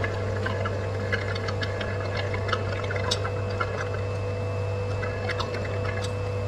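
Electric turbo oil scavenge pump running with a steady hum while oil and air gurgle and crackle through a loosened return-line fitting. The pump is sucking air past the oil instead of drawing the oil uphill from the turbos.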